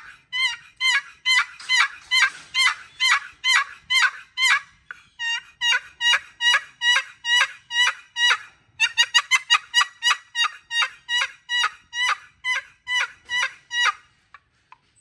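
Long turkey box call, sycamore lid on a solid walnut box, with its paddle scraped across the box's lip in runs of two-note yelps, about three a second. Around nine seconds in a quicker cluster of notes comes, and the calling stops about a second before the end.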